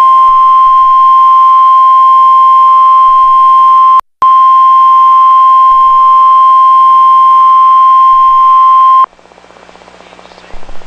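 Weather-radio warning alarm tone: a single loud, steady tone near 1 kHz that signals an imminent warning broadcast. It drops out briefly about four seconds in and cuts off abruptly about nine seconds in.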